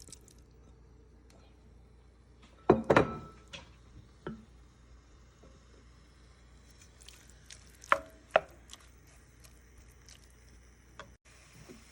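Kitchen utensils knocking on a bowl and pan as seasoned chopped raw chicken is scraped into the pan: a quick cluster of sharp knocks about three seconds in, one more a second later, and two more near eight seconds.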